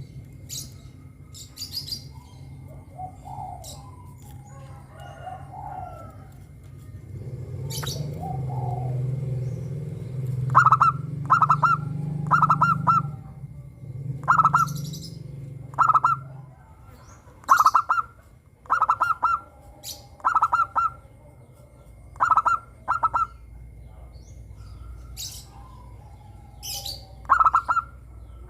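Zebra dove (perkutut) song: short, clear cooing notes in quick groups of two or three, repeated every second or two from about a third of the way in. Thin high chirps of other small birds and a low steady hum sit under it in the first half.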